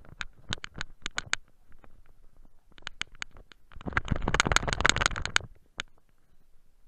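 Boots crunching in snow: a run of sharp single crunches, then a denser, louder burst of crunching about four seconds in that stops suddenly.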